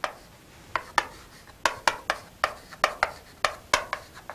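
Chalk writing on a chalkboard: a quick, uneven run of about a dozen short chalk strokes and taps as characters are written.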